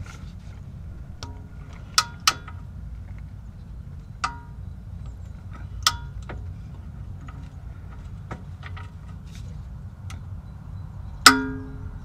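Click-type torque wrench ratcheting the oil drain plug tight to 30 Nm: scattered sharp metallic clicks, each with a brief ring. The loudest click, near the end, rings longest, as the wrench breaks over at its set torque.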